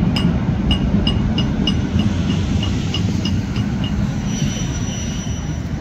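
Diesel engine of a touring coach rumbling low as it drives up to the bus stop. Over it, a run of short high beeps comes about three times a second for the first half, and a steady high tone sounds briefly near the end.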